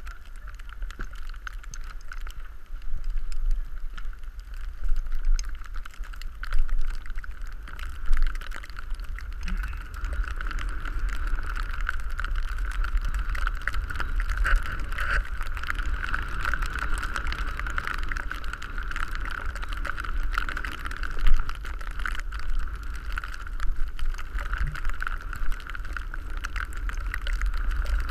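Wind buffeting a camera microphone with a steady low rumble, and skis hissing over snow on a descent, with scattered clicks and a few louder bumps.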